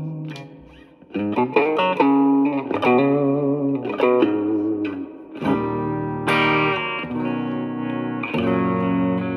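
Strat-style electric guitar with three single-coil pickups played through a Yamaha THR10C modeling amp on its US Blues amp model. Short single-note phrases with wavering, vibrato-like pitch give way about halfway through to sustained chords that ring out.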